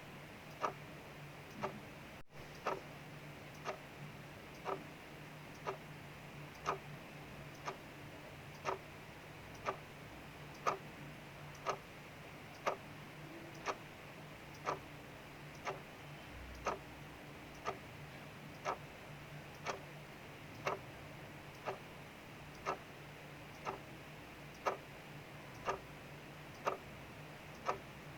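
Mechanical clock ticking steadily, about one tick a second, over a faint steady hiss of rain.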